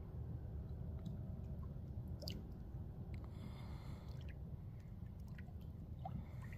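Faint lake water lapping and dripping among shoreline rocks, over a low steady rumble, with a few soft clicks.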